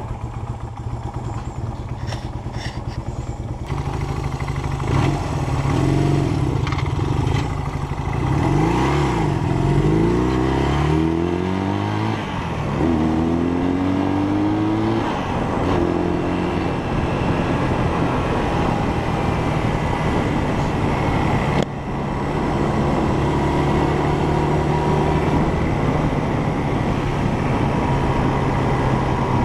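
1971 Honda CL175's parallel-twin engine running, revved up and down several times between about five and fifteen seconds in, then settling back to a steady idle.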